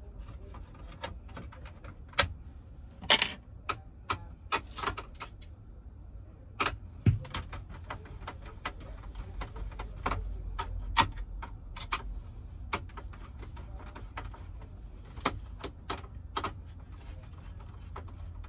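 Screwdriver turning T25 Torx screws out of a car stereo's metal mounting: irregular sharp metallic clicks and taps, some in quick clusters.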